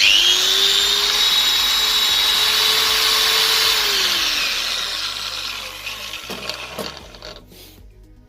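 Bosch angle grinder switched on: the motor and gearhead whine up to speed at once, run steadily for about four seconds, then the grinder is switched off and winds down with a falling whine. A couple of light knocks come near the end. It is the test run of the grinder, freshly reassembled after its worn gears were replaced.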